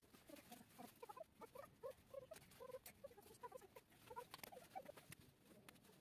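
Near silence with faint, scattered short animal calls, several a second.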